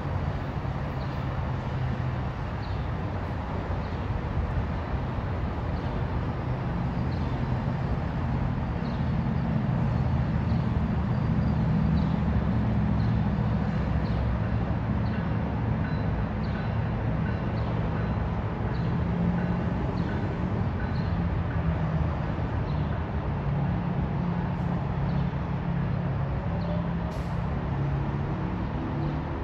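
Amtrak Pacific Surfliner train pulling away. Its diesel locomotive's engine under power gives a steady low drone, with faint light ticks above it.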